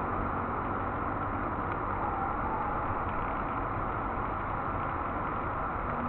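Honeybees buzzing at the hive entrance: a steady drone of many bees, with single bees passing close now and then.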